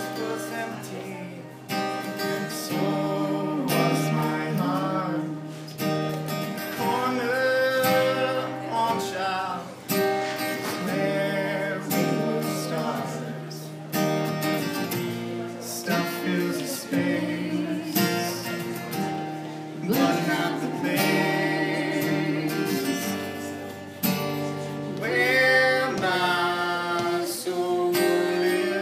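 A song played live on a strummed acoustic guitar, with a voice singing over it.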